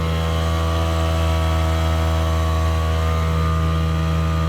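A boat motor running steadily at an even speed, a constant low hum.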